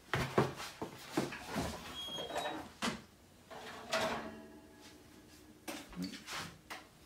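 Wall oven door being opened and a cake pan lifted out with oven mitts: a string of knocks and clatters of the door and pan, with a brief high thin tone about two seconds in and a low hum in the middle.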